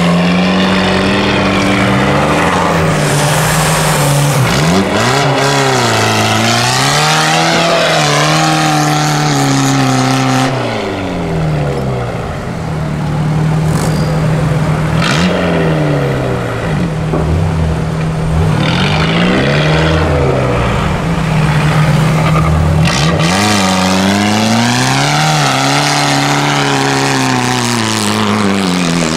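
Engines of modified off-road 4x4 trial vehicles revving hard, pitch rising and falling over and over as they claw up steep sand banks, several vehicles one after another.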